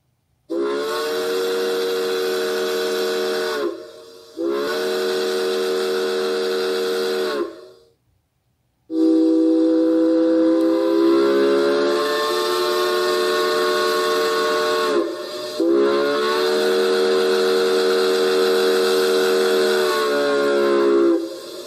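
Southern Railway #4501's three-chime steam whistle sounding four loud blasts, each a steady chord over a rush of steam: two blasts of about three seconds, then after a short pause two long blasts of about six seconds.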